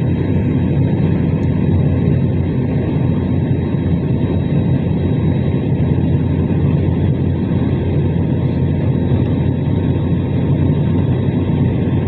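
Airliner cabin noise during landing: a steady, loud low rumble of engines and airflow heard from inside the aircraft.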